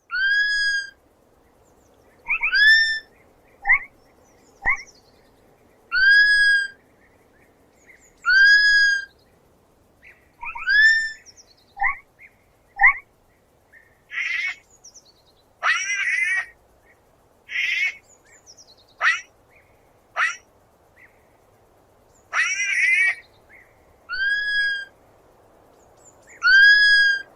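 Sloth calling: a series of high-pitched squeaks, each up to about a second long and repeated every one to two seconds, with a rougher, wavering run of calls in the middle.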